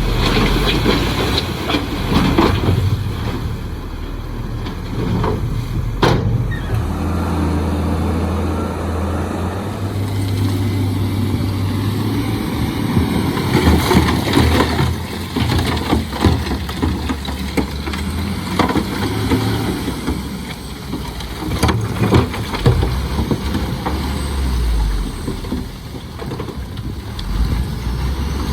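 Heavy diesel earthmoving machinery running, its engine note rising and falling as it works under load, with a few sharp metallic clanks.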